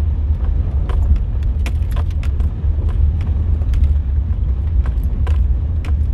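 Vehicle driving over a rough dirt off-road trail with the windows down: a steady low rumble of wind and road noise, with frequent irregular rattles and clicks from the cabin as it bounces.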